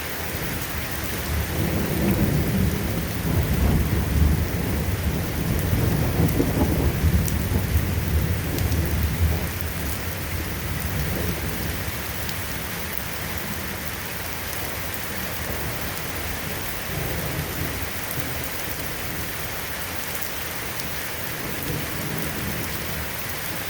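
Steady rain falling, with a long low rumble of thunder that rolls in a couple of seconds in, swells and dies away over about ten seconds; a fainter rumble follows later on.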